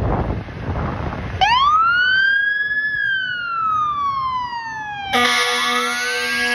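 Fire engine pulling out on a call: a low engine rumble, then about a second and a half in its mechanical siren winds up to a high wail and slowly coasts down. About five seconds in, a steady air-horn blast starts as the siren winds up again.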